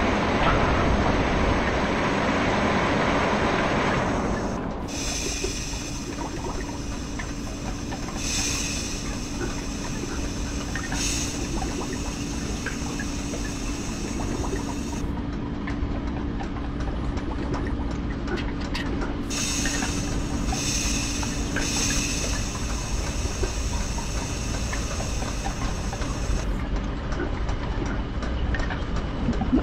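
Machine sound effects for an animation: a continuous mechanical rumble and clatter, with a steady low hum and two long spells of hissing steam that swell in pulses.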